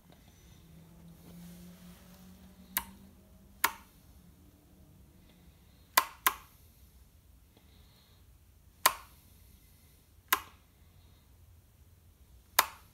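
Seven sharp, short clicks at uneven spacing over a quiet background, with a faint low hum in the first few seconds.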